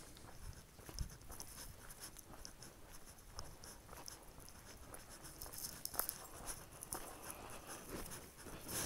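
Faint footsteps on a dry dirt trail strewn with fallen leaves, an irregular patter of light crunches and ticks.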